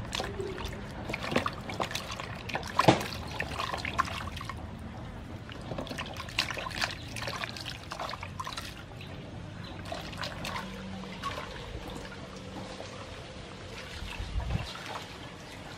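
Water splashing and trickling in a large metal basin as hands rub and turn vegetables in it and lift pieces out, dripping. The sharpest splash comes about three seconds in.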